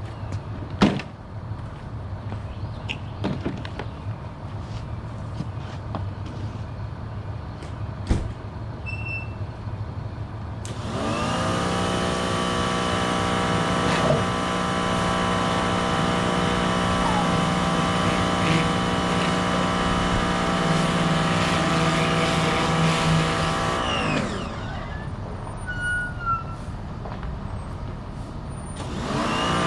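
Electric pressure washer's motor and pump spinning up quickly as the trigger is squeezed, running at a steady pitch for about thirteen seconds, then winding down when released and starting up again near the end. Before it first starts, there is a low hum with two sharp clicks, about a second in and about eight seconds in.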